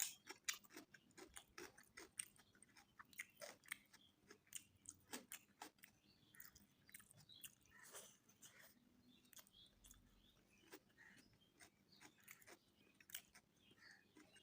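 A person chewing mouthfuls of mutton biryani close to the microphone, with wet clicks and crunches, many in quick succession at first and sparser in the second half.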